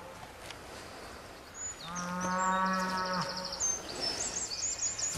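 A cow moos once, a steady call lasting just over a second, about two seconds in. Birds sing high chirps through the second half.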